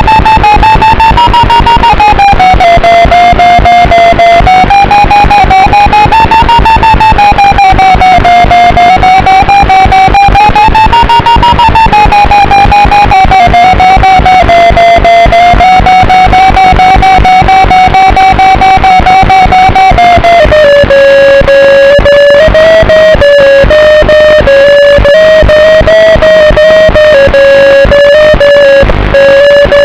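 FPV aircraft's electric motor and propeller whine, one strong steady pitch that drifts smoothly up and down with the throttle and settles lower about two-thirds of the way in. Rough, distorted wind buffeting runs underneath.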